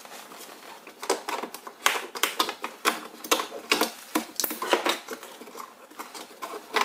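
Irregular sharp clicks and taps of a plastic wiring harness, its grommet and connector being handled and pushed into a truck door, a few knocks a second.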